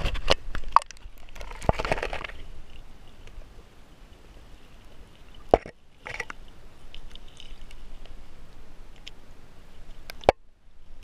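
Creek water splashing and sloshing around a camera dunked below the surface, with sharp knocks and a splash in the first two seconds, then a quieter stretch broken by a few single knocks.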